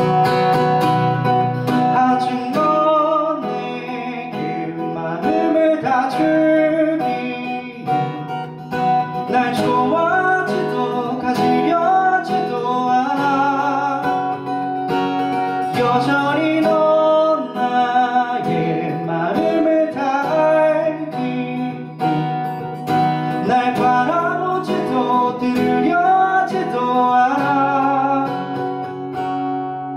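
Steel-string acoustic guitar strummed and picked, with a man singing a Korean song over it.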